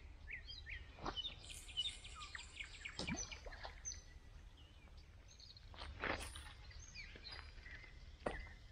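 Birds singing: many short chirps and whistles over a steady low background rumble, with four sharp clicks or knocks spread through it, the loudest about six seconds in.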